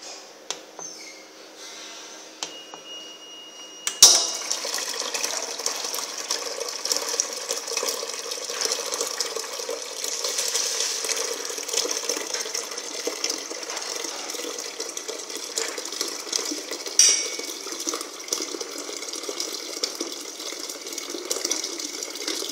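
Oil pouring in a thin gravity-fed stream from a vending machine's nozzle into a plastic can, a steady splashing trickle. It starts with a sharp click about four seconds in, and there is another click partway through.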